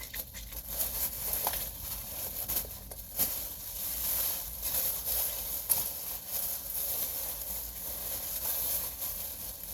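Rustling, crinkling and small clicks and knocks of hands rummaging through a pile of small soft and plastic toys, searching for one that is missing.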